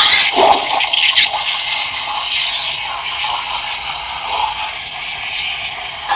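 La Pavoni Pro steam wand hissing into a pitcher of milk, frothing it for a cappuccino. The hiss is loudest in the first second and then settles a little lower and steady.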